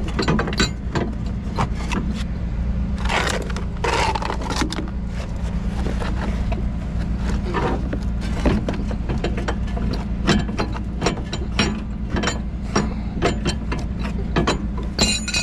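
Metal hooks and chain being dragged and pulled out from under a wrecked car: scattered scrapes, clicks and clinks, with a short ringing metal clang near the end. Underneath, the tow truck's engine runs with a steady low hum.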